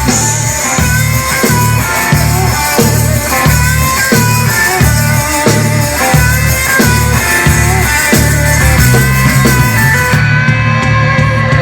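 Rock band playing: electric guitar lines with bent, wavering notes over a heavy bass pulsing in a steady rhythm.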